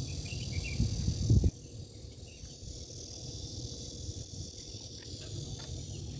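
Outdoor ambience: a steady high insect drone with a low rumble on the microphone. The rumble swells in the first second and a half, then drops off suddenly.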